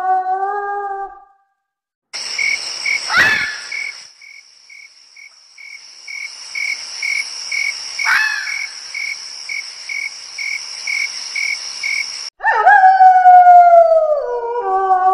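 A long howl ends about a second in, sliding down in pitch. Next comes a night insect chorus: a steady high buzz with a cricket-like chirp about twice a second, broken twice by a short falling cry. The insects cut off suddenly and another loud, wavering howl starts, dropping in pitch as it goes.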